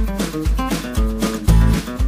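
Background music with a steady beat, about two bass hits a second.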